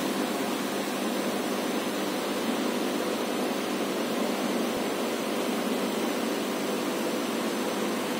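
Steady, unbroken rushing noise of aquarium water flow from the tank's filter pump, with a faint hum under it.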